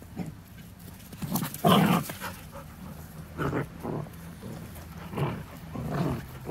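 Puppies barking in play, several short bursts, the loudest about a second and a half in.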